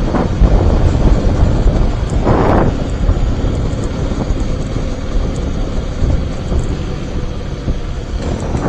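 Wind buffeting the helmet-mounted action camera's microphone while riding a Mondial HPS 125i motorcycle, a dense low rumble with a brief louder gust about two and a half seconds in. Under it, a faint steady hum from the bike's 125 cc single-cylinder engine.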